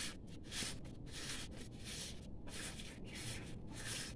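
Sandpaper rubbing on a small brake wheel-cylinder piston, hand-sanded in quick back-and-forth strokes of about two a second.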